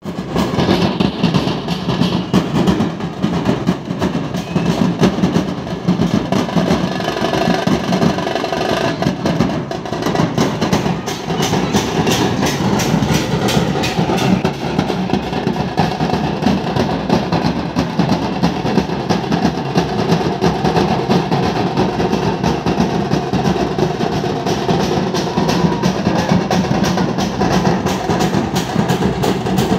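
A Nashik-style dhol troupe, several large barrel drums beaten with sticks together, playing a loud, dense, continuous rhythm.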